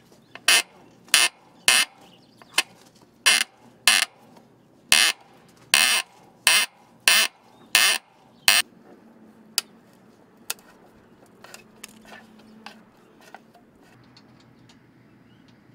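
Hand ratchet wrench worked on a bolt: about a dozen quick ratcheting strokes, one roughly every half second or so, then a few scattered light clicks near the end.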